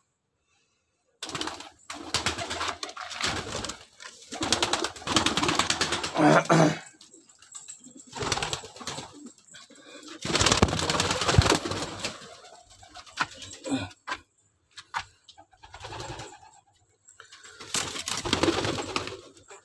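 Domestic pigeons cooing in repeated bouts of a few seconds each, with short pauses between them.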